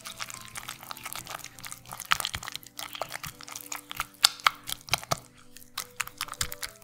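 Silicone spatula stirring thick crema with chopped parsley in a glass bowl: wet, sticky mixing with quick irregular clicks and taps against the glass, sharper from about two seconds in. Soft background music underneath.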